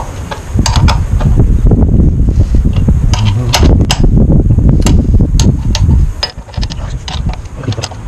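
Metal clicks and scrapes of a spanner being worked on a motorcycle's front brake caliper bolts. A loud low rumble runs under the clicks and fades about 6 seconds in.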